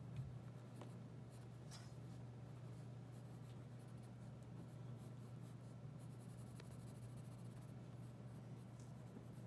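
Graphite pencil scratching faintly on sketchbook paper in short strokes as lips and chin are sketched, over a steady low hum.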